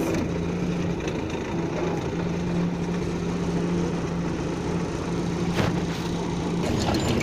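MTZ tractor's diesel engine running steadily while pulling a seed drill across the field, with a couple of brief knocks about five and a half seconds in and the engine note rising slightly near the end.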